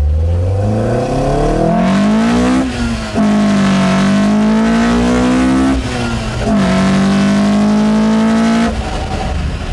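Toyota dual-VVT-i BEAMS 3S-GE four-cylinder on individual throttle bodies, heard from inside the bakkie's cab, revving up hard through the gears on a mild pull. Two upshifts break the climb, about three seconds in and again about six seconds in, and the throttle lifts near the end.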